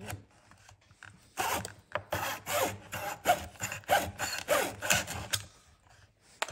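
A hobby razor saw cutting through a quarter-inch square wooden strip in a miter box. It goes back and forth in rasping strokes, about three a second, from about a second and a half in until about five and a half seconds in.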